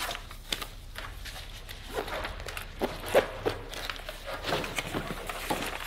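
A few soft, irregular taps and rustles, like light footsteps and items being handled, over a faint low hum.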